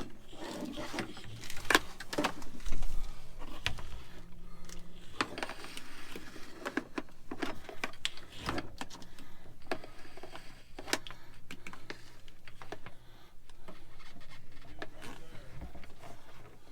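Irregular clicks, taps and rustling of a GPS cable and its plastic fittings being handled and routed inside a tractor cab, with a faint steady hum underneath.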